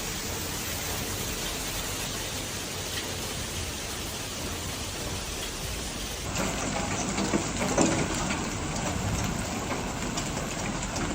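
Heavy rain, a steady even rush of noise. About six seconds in it switches abruptly to a different, louder recording of rough storm noise with a few sharp knocks.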